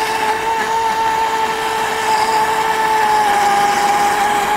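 Electric motor of a radio-controlled racing boat whining steadily as the boat runs at speed across the water, the pitch dipping slightly about three and a half seconds in.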